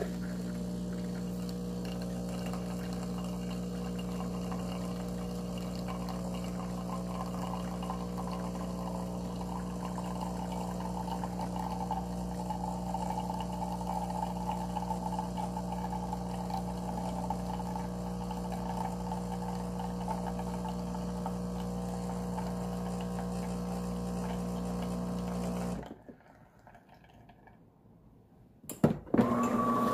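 DeLonghi bean-to-cup espresso machine's pump running with a steady hum while liquid pours from the spout into a ceramic jug. It cuts off near the end, followed by a sharp click.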